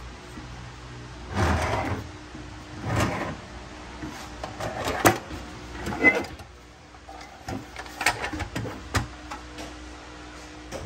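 A series of short scrapes and knocks, four of them in the first half, then a run of sharp clicks.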